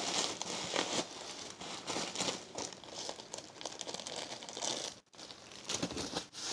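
Paper tissue crinkling and rustling in a quick string of small crackles as sticky slime is wiped off the hands. It breaks off for a moment about five seconds in.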